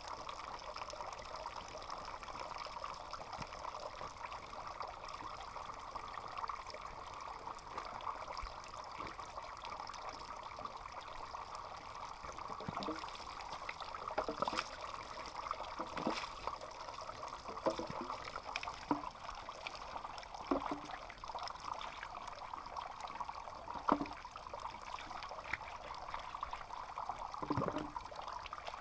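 Water trickling steadily, with a few short, louder sounds in the second half.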